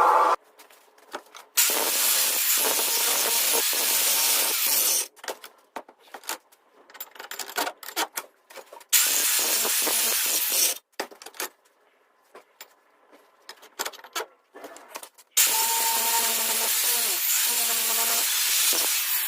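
A power grinder working steel in three long passes of steady, hissing noise, each starting and stopping abruptly, with scattered clicks and knocks between the passes as the piece is handled.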